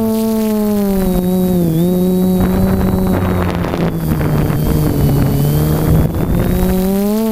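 FPV quadcopter's motors and propellers humming close to the onboard microphone, the pitch dipping and rising with throttle. From about two and a half seconds in, wind rushes over the microphone as the drone flies fast forward, and the hum drops slightly in pitch. The wind rush fades and the hum rises again near the end.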